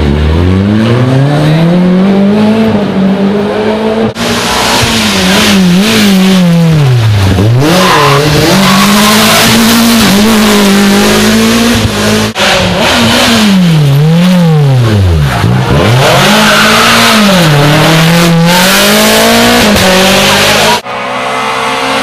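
Rally cars driven flat out on a tarmac stage in several short passes, engines revving hard and climbing through the gears, with sharp drops in revs as the drivers lift and shift down for corners.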